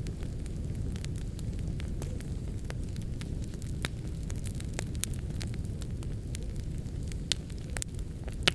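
Wood fire in a fireplace crackling: a steady low rumble of the flames with frequent sharp pops and snaps scattered irregularly, a louder pop a little past seven seconds and another near the end.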